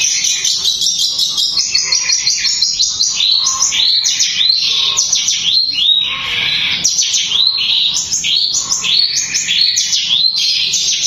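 Caged long-tailed shrike (cendet) singing loudly: a fast, dense run of short notes, then from about three seconds in a string of hooked, rising whistled notes repeated about one or two a second.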